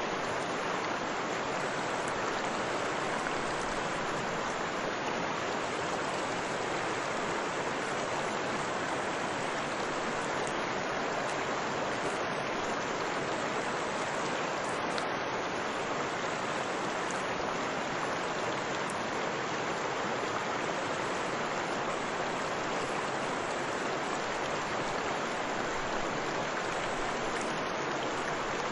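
Water pouring steadily over a waterfall on a river: an even, unbroken rush.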